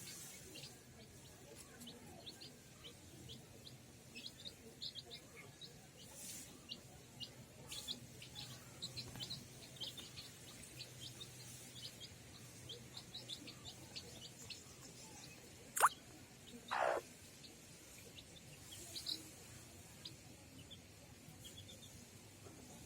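Newly hatched chicks peeping: many short, high chirps, faint and scattered. About two-thirds of the way through there is a sharp click, then a brief louder sound.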